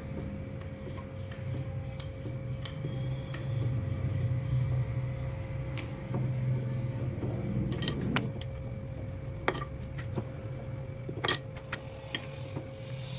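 Wooden rolling pin rolled back and forth over a round rolling board, rolling out a stuffed gul poli: a low rumble that swells and eases with each pass, with a few sharp clicks and clinks in the second half.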